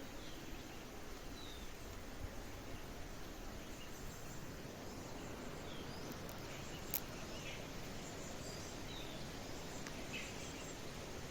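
Birds giving scattered short chirps and calls over a steady outdoor hiss. There is a single sharp click about seven seconds in.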